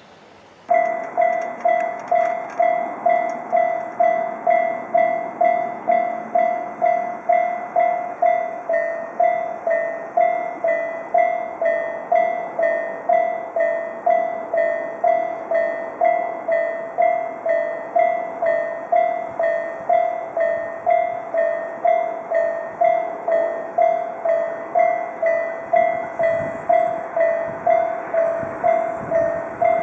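Japanese railroad crossing's electronic warning bell starting suddenly and ringing in rapid, evenly spaced dings. From partway through, two bells of slightly different pitch alternate, so the dings go high-low.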